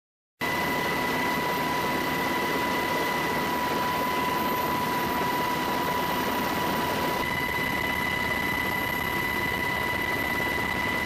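Steady drone of an aircraft's engines: a constant high whine over a rushing noise that holds level throughout. It cuts in abruptly about half a second in.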